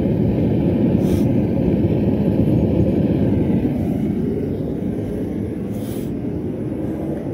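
Gas forge burner running: a steady low rushing noise that drops a little in level about four seconds in.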